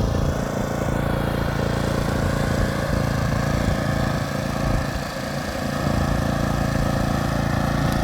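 Engine running steadily, with a short dip in level about five seconds in.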